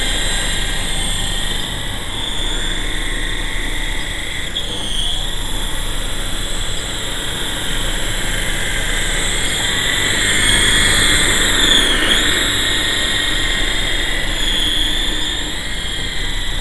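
Electric motors and spinning rotor blades of a GT Model QS8006 RC helicopter whining steadily as it hovers low. The pitch dips and recovers with throttle changes about five seconds in and again about twelve seconds in, louder around the second dip.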